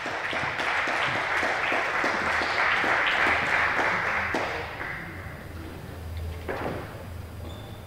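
Audience applauding; the clapping dies away about five seconds in, leaving a few scattered claps.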